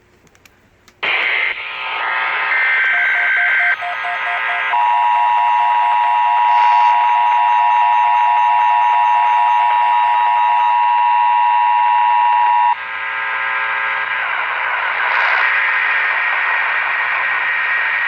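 Emergency Alert System tones received over the air: about a second in, the screechy data bursts of the SAME header start abruptly, then the two-tone EAS attention signal (853 and 960 Hz) holds steady for about eight seconds and cuts off into hiss. This opens a Required Monthly Test.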